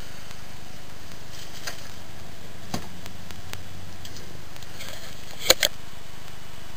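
Steady hum of a computer power supply and its fan. A faint click comes near the middle, then two sharp pops in quick succession near the end.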